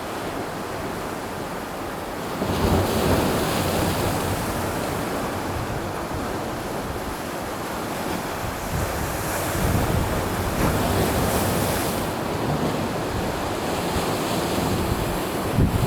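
Sea of Japan waves washing onto the rocky shore, the surf swelling and easing in long surges, with wind buffeting the microphone in low rumbles.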